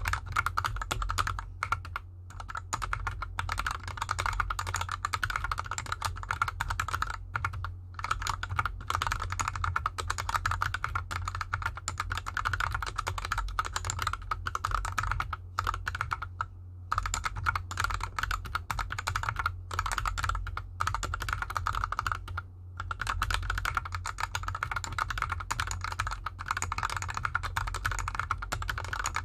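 Fast, continuous typing on a GK64X mechanical keyboard with lubed Gateron Yellow linear switches and DSA keycaps, sitting on an artificial grass mat. It is a dense stream of keystroke clacks, broken by a few short pauses.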